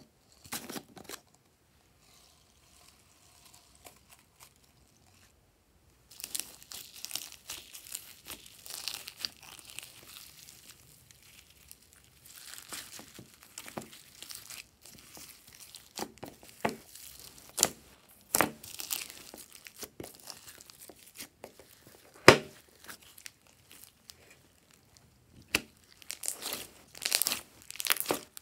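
Hands squishing, folding and stretching glossy slime mixed with foam beads: sticky crackling with many sharp pops and snaps as air pockets burst. It starts about six seconds in after a few quiet clicks.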